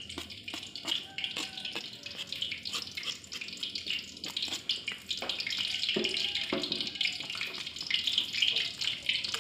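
Steady sizzling hiss of oil heating in a wok on the stove, growing louder about halfway through, with a few sharp knocks.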